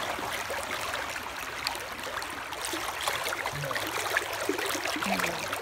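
Swollen creek running high: a steady rush of flowing water, with scattered small ticks through it.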